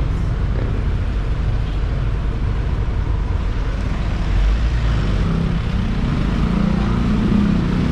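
Street traffic noise with a motor vehicle engine running close by, getting louder about halfway through.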